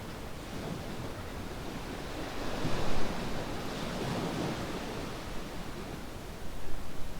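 Ocean waves washing onto a beach, the surf swelling to its loudest about three seconds in and surging again near the end.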